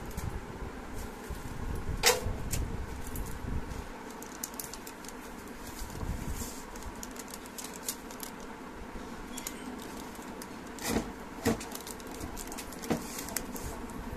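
Handling of a plastic photo sheet and a small acrylic block: crinkly rustling and small clicks as a backing film is peeled away. There are a few sharper clicks about two seconds in and again around eleven to thirteen seconds, over a steady low background rumble.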